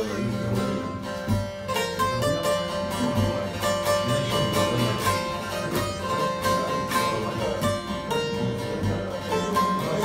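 Bağlama (saz), a long-necked Turkish lute, played alone in a fast stream of plucked and strummed notes, with no singing.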